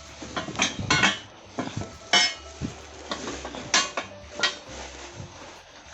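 Metal parts clinking and knocking together as they are handled, about half a dozen irregular sharp clinks.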